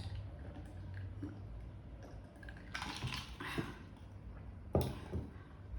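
Close-miked chewing and wet mouth clicks while eating, with a cluster of louder chewing sounds about three seconds in and a sharp click near the end.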